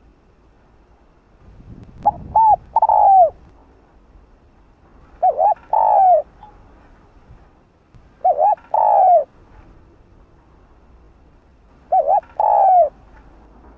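Spotted dove cooing: four calls, each two short notes followed by a longer drawn-out note, repeated every three to four seconds.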